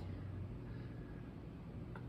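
Faint, steady room tone with a low hum and no distinct sounds: a pause between words.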